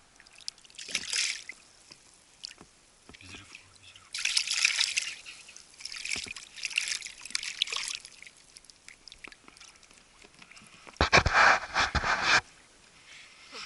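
Water splashing and sloshing beside a small boat in several short bouts as a hooked fish is brought in on a rod. A louder, fuller burst of noise comes a little before the end.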